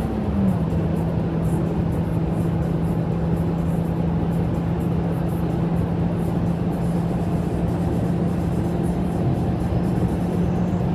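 Honda Civic FB7 running on LPG, heard from inside the cabin at highway speed: a steady engine and exhaust drone over heavy tyre and wind noise. About half a second in, the engine note drops abruptly in pitch, as in a gear change, then holds steady as the car keeps accelerating.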